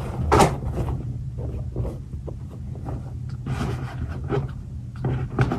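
Scattered rustles, light knocks and clatters of small items being handled, the loudest about half a second in, over a steady low hum.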